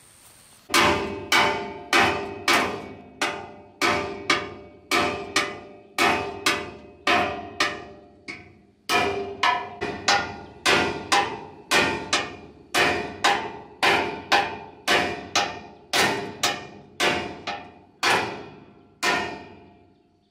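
Hammer blows on the metal threshing drum of an old rice threshing machine, each strike ringing briefly. A steady run of a little under two blows a second, with a short break about eight seconds in.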